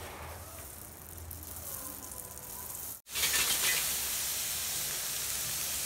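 Curry leaves sizzling steadily as they roast in a hot iron kadai. The sizzle starts abruptly about three seconds in, after a cut; before it there is a quieter stretch with a low hum.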